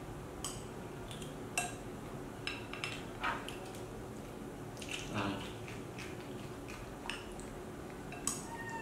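A metal spoon scooping rice off a ceramic plate, clinking against it in scattered, irregular taps; the sharpest clinks come about a second and a half in and near the end.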